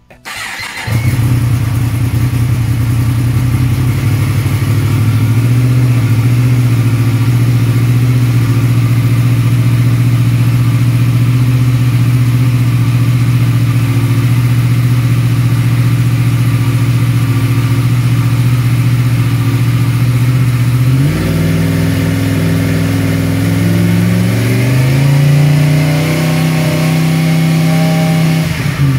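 Yamaha MT-10's crossplane inline-four engine is cranked and catches within the first second, then idles steadily. About 21 s in the engine speed steps up, and it rises again a few seconds later.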